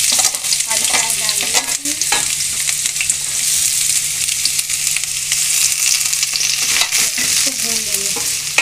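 Diced onions sizzling steadily in hot oil in a stainless steel kadhai as they go in, stirred and scraped with a wooden spatula.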